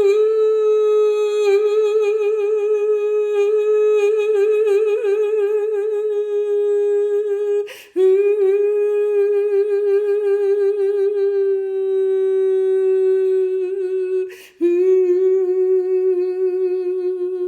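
A woman's unaccompanied voice holding long, wavering notes on nearly one pitch, with a quick breath about eight seconds in and again about fourteen seconds in.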